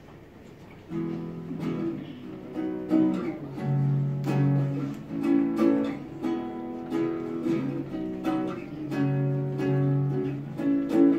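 Acoustic guitar strumming chords in a steady rhythm, starting about a second in.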